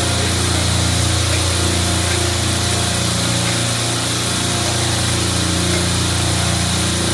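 Steady, loud machine-room drone of a supermarket refrigeration rack's compressors running, a low hum with a hiss on top and no change in level.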